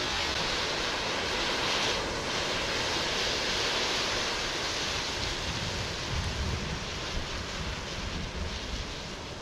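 A large pile of burning matches: the flames make a steady rushing hiss that eases off slightly as the fire dies down. Wind buffets the microphone with low rumbles about five to seven seconds in.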